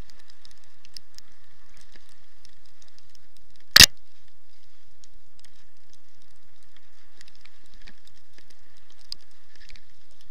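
A single sharp, loud knock about four seconds in, over a faint, steady patter of light crackles and ticks.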